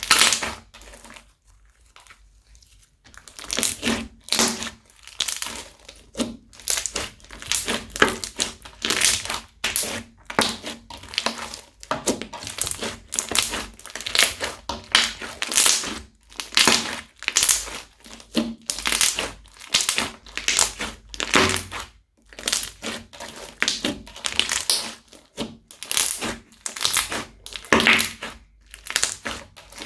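Crunchy slime being squeezed and pressed, making repeated crackling crunches about once or twice a second, after a short pause near the start.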